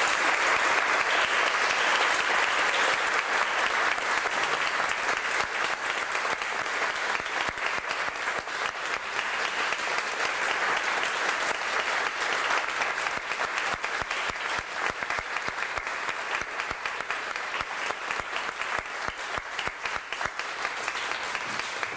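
Audience applauding, many hands clapping at once, loudest at first and slowly dying down.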